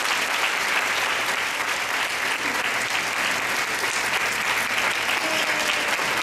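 A large audience applauding steadily, welcoming a guest speaker onto the stage.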